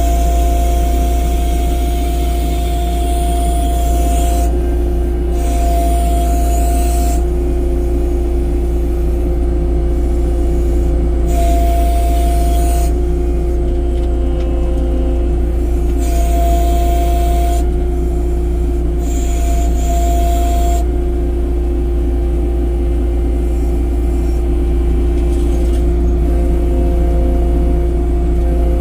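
A vehicle's engine running at a steady speed, with a steady deep rumble. A higher whine and a rushing hiss come and go together about five times.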